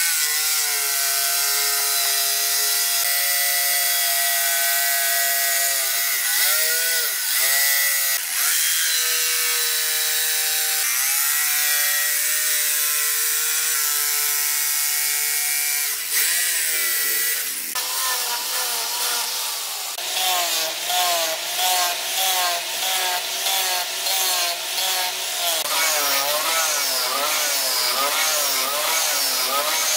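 Electric jigsaw cutting a wooden board, its motor whining steadily and dipping in pitch as the blade bogs in the wood. About two-thirds of the way through it gives way to an angle grinder with a sanding disc working the wood, its pitch wavering as it is pressed on.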